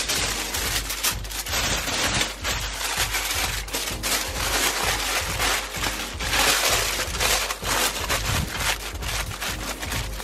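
Aluminum foil crinkling and crackling as it is folded and crimped shut around a rack of ribs, a continuous run of crackles that is loudest a little past the middle.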